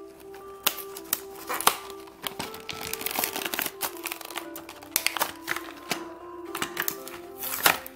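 Cardboard backing being torn and peeled off a plastic blister pack, with sharp crackles of card and plastic, the loudest near the end, over light background music.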